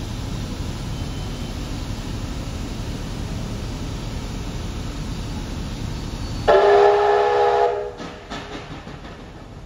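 Steady rumble of a train running on the rails, then about six and a half seconds in a single whistle blast of just over a second, several notes at once with a slight upward slide as it opens: steam locomotive 3801's whistle. The running noise is quieter after the blast.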